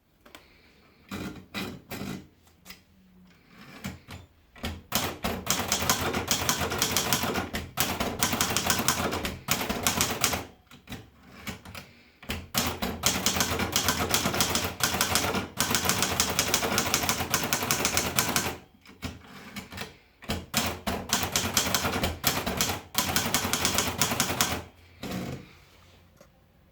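Hermes Baby portable manual typewriter being typed on: a few single keystrokes, then long runs of rapid key strikes broken by short pauses.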